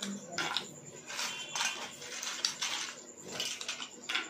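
Eating sounds: a series of short crunches and light clinks, about six in all, as crisp fried papad chips are bitten and food is handled by hand on the plates.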